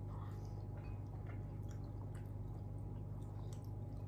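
Faint chewing of crispy fried meatballs (bakso krispi), with small scattered wet mouth clicks over a steady low hum.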